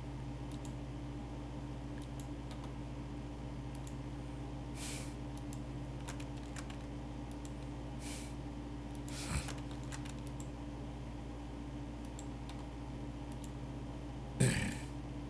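Scattered clicks of a computer keyboard and mouse, with a few louder key strokes and one loud thump near the end, over a steady low electrical hum.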